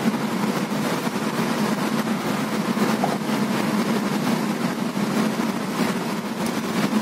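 Car driving at speed, heard from inside the cabin: steady road and engine noise with a constant low hum.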